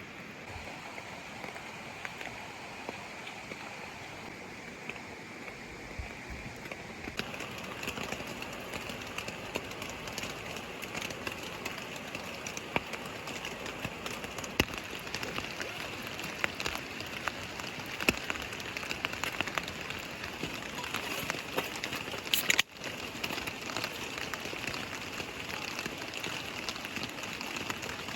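Steady rain, with a constant hiss and many separate drops ticking sharply on a nearby surface; the drops grow busier about a quarter of the way in. The sound breaks off for a moment about four-fifths of the way through.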